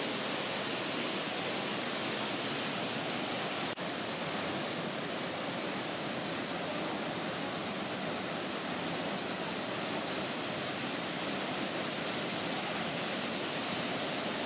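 Kawasan Falls' waterfall pouring into its pool: a steady, even rush of falling water, with one brief dropout about four seconds in.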